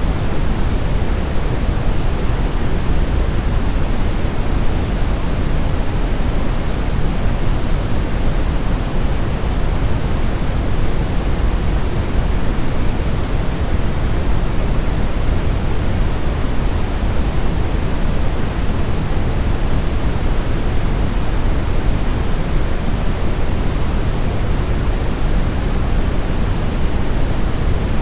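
Steady synthetic brown noise: an even, deep rushing hiss weighted toward the low end, with no changes or events.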